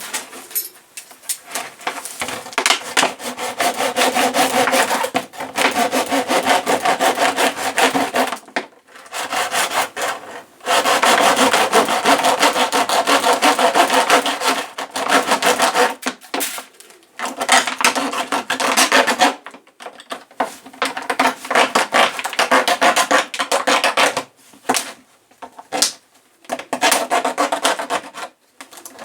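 A blade sawing back and forth through the wall of a plastic bucket to cut a hole. The strokes are rapid and come in runs of several seconds, broken by short pauses.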